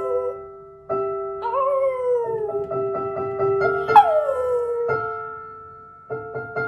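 A small white puppy howling along to slow piano chords: one howl about a second and a half in that slides gently down in pitch, and a second, higher one about four seconds in that falls away steeply.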